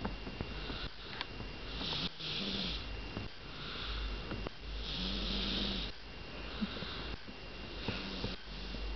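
A sleeping person snoring, a run of short snores about one to one and a half seconds apart.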